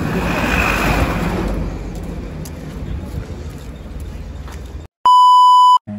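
A minibus driving past close by, its engine and tyre noise swelling over the first second or so and then fading. About five seconds in, the street sound cuts out and a loud, steady high-pitched beep, like an edited-in censor bleep, sounds for just under a second.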